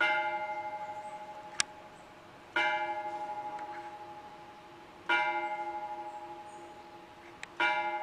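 A single bell tolling slowly, struck four times about two and a half seconds apart at the same pitch, each stroke ringing on and fading with a slight waver. A short sharp click falls between strokes twice.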